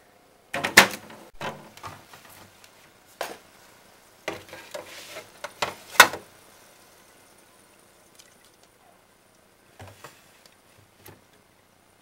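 Handling noises inside a refrigerator: a run of sharp knocks and clatters with rustling as a plate and food are moved about on the shelves, the loudest about a second in and about six seconds in, then only a few faint taps.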